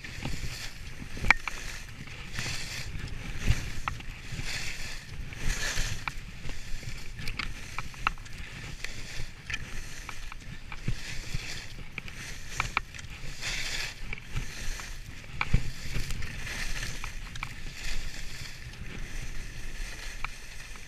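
Skis carving turns on snow, a swish about once a second, over a low rumble of wind on the microphone, with a few sharp knocks.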